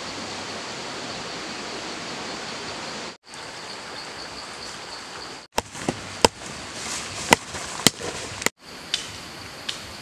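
Forest ambience: a steady hiss with a high insect-like buzz over it, broken off by abrupt cuts. In the middle stretch, half a dozen sharp knocks and clicks of objects being handled around camp stand out as the loudest sounds.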